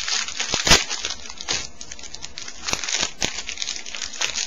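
Foil trading-card pack wrapper crinkling as it is handled and opened by hand. There are several sharp crackles, the loudest a little under a second in.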